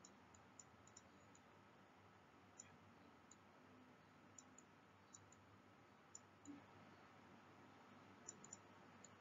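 Near silence: faint room tone with scattered light clicks, about a dozen, of a stylus tapping and writing on a pen tablet.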